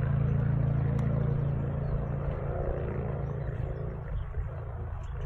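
A motor vehicle's engine hums steadily, fading away over the first three or four seconds.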